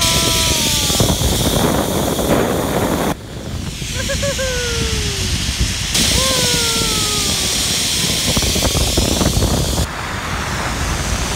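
Rushing wind buffeting the microphone of a camera riding a zipline at speed; the rush drops suddenly about three seconds in, returns near six seconds and eases again near ten. Three high, falling whoops sound over it.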